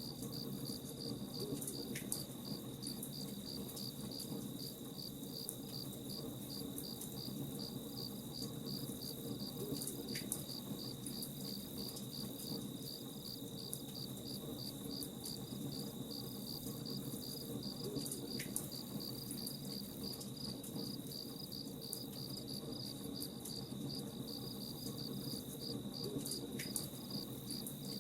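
Crickets chirping in a steady, even pulsing rhythm over faint crackling from a campfire. A brief higher note recurs four times at even intervals.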